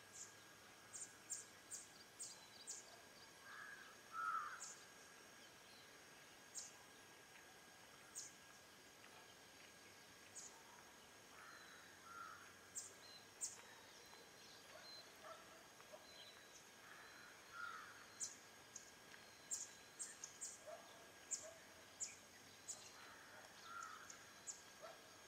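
Faint outdoor ambience of wild birds: many brief, sharp high chirps scattered throughout, and a short lower call repeated about every six seconds, over a faint steady high tone.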